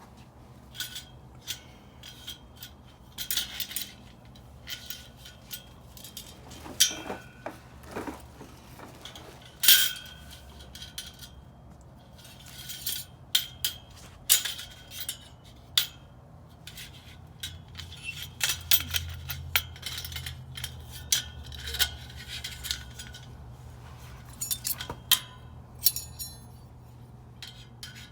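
Metal parts of a dish drying rack clicking, knocking and clinking together as the rack is assembled: irregular clusters of sharp clicks, some with a brief metallic ring.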